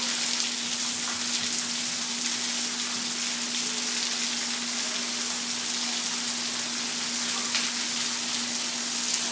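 Heavy rain falling steadily on a pickup truck, roofs and pavement, an even hiss with faint scattered patters. A faint steady hum runs underneath.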